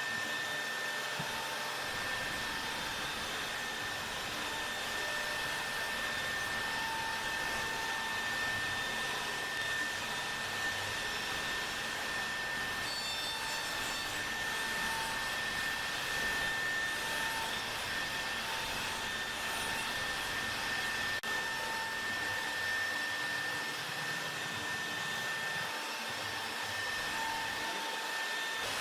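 CNC router spindle motor running while carving wood: a steady rush of noise with a constant high whine, and a lower tone that comes and goes as the cut goes on.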